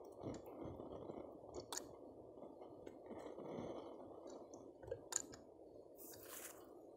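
Faint handling of a plastic PVC pipe and fitting: a few small sharp clicks, and a brief scrape about six seconds in, over steady low background noise.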